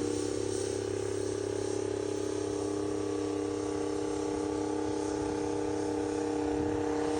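Rite 750 Earthquake tractor's engine running at a steady drone while pulling a plow.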